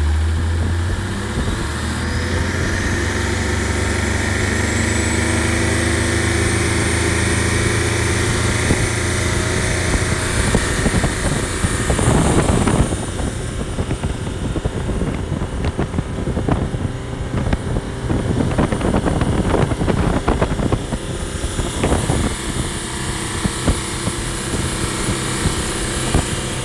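BMW M57 three-litre straight-six turbo diesel running hard in an open speedboat engine bay, its pitch and turbo whistle rising over the first several seconds as it pulls the boat up to speed. Past the middle, rushing wind and water with irregular buffeting knocks crowd in over the engine.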